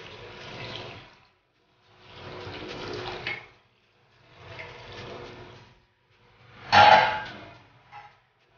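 Boiling water poured from a steel saucepan into a pot of simmering chicken curry, splashing in four separate pours with short pauses between them, the last pour the loudest.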